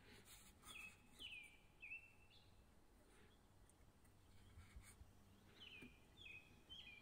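Faint bird chirps: two runs of three quick downward-sliding notes about five seconds apart, over quiet room tone with a few faint clicks.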